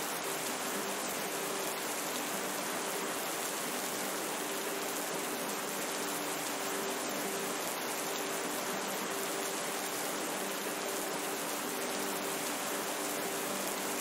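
Steady rain sound, an even hiss that does not change, with faint low held tones underneath.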